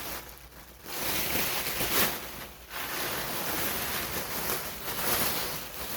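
Plastic bags of yarn rustling and crinkling as they are handled, in two long stretches with a sharp crackle about two seconds in.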